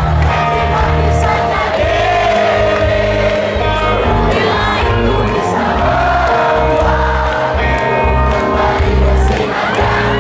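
Live pop-rock band of electric guitars, bass and drums playing a ballad while a large audience sings the words together like a choir.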